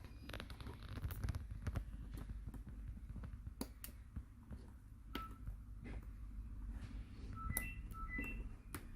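Faint scattered clicks and taps of small phone parts and tools being handled, with a few short electronic beeps at different pitches about five seconds in and again near the end.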